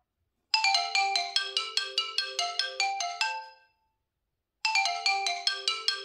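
OnePlus 9 Pro ringtone: a quick marimba-like melody of bright struck notes, about five a second, starting about half a second in. The phrase lasts about three seconds, stops for a second, then starts over as the ringtone loops.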